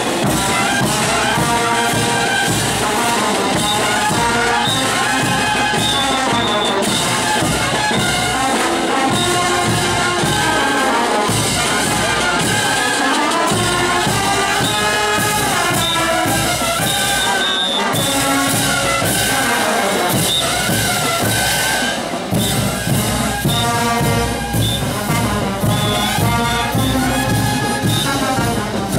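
Brass band music: a melody carried by trumpets, with low tuba parts beneath.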